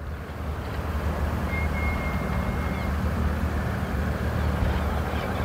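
A motor vehicle's engine running with a low, steady hum that grows gradually louder. A brief thin high-pitched tone sounds about a second and a half in.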